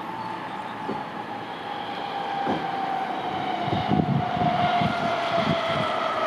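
Berlin S-Bahn class 480 electric train approaching, its traction motor whine falling slowly in pitch as it slows. A rumble and irregular knocking from the wheels on the track grow louder from about three and a half seconds in.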